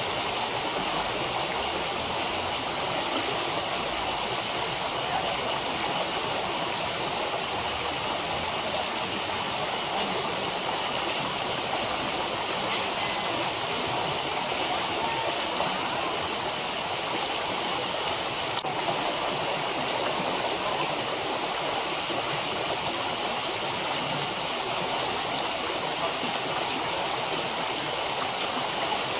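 Running water rushing steadily and evenly, as from a stream or waterfall.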